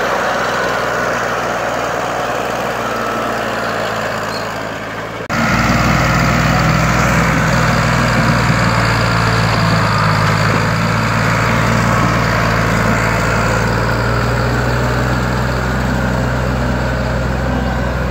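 Ford 4610 tractor's three-cylinder diesel engine running steadily under heavy load while pulling a trolley piled high with firewood. About five seconds in, the sound changes suddenly to a louder, deeper drone.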